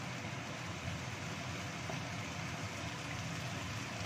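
Cut green beans and carrots sizzling in a wok as they are stir-fried and turned with a wooden spatula: a steady hiss with a low rumble underneath.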